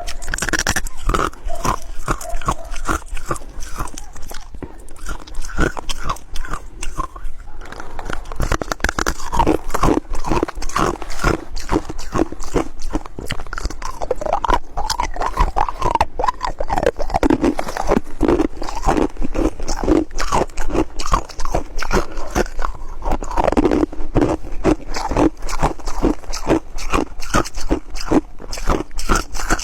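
Ice being bitten and chewed close to the microphone: rapid, continuous crunching of hard and soft, flaky ice.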